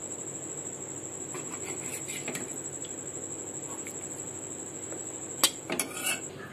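Metal spatula scraping and pushing a crumbly, cooked-down milk-cake mixture around a steel pan, with light scrapes and a louder knock against the pan about five and a half seconds in. A steady high trill runs underneath and stops just before the knock.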